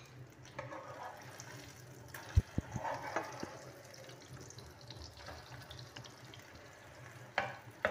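Egg and shami kababs frying in shallow oil in a pan, a soft steady sizzle, with a few light knocks of metal tongs and spatula against the pan about two and a half seconds in and again near the end.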